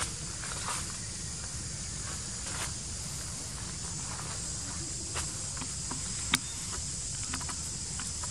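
Steady high-pitched drone of a forest insect chorus, with scattered light crackles of dry leaf litter and twigs and one sharp snap about six seconds in.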